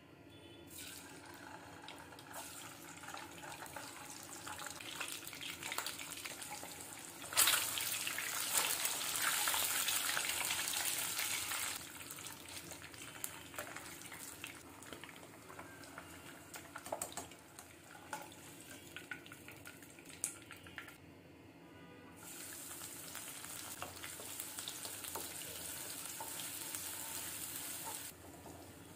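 Hot oil sizzling and crackling in a nonstick pan as whole boiled eggs fry, and then sliced onions. The sizzle jumps louder about seven seconds in and again about twenty-two seconds in, with scattered light ticks between.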